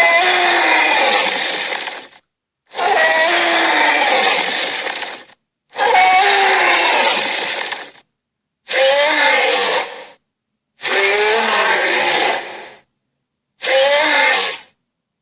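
Creature roar sound effects: six harsh, raspy roars, each one to two and a half seconds long with a wavering pitch, separated by dead silence.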